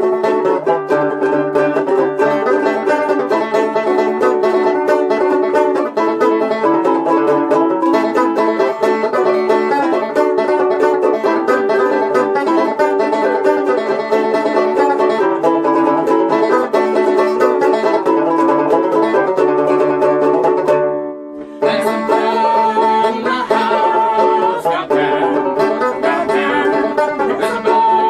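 Instrumental opening of a folk song played on plucked strings, with no singing. It stops briefly about three quarters of the way through, then picks up again.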